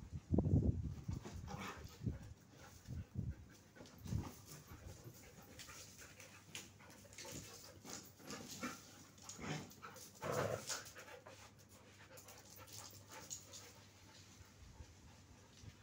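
A Siberian husky and another dog playing rough, with panting and short scuffling and vocal sounds. The loudest burst comes in the first second, followed by scattered shorter ones.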